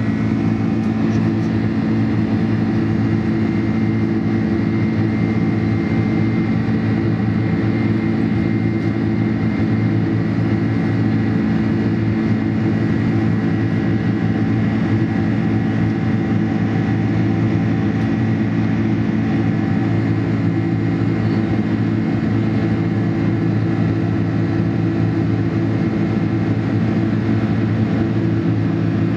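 Steady cabin noise inside a Boeing 747-400 in flight: an even low drone from its four turbofan engines and the airflow, with a thin high whine above it.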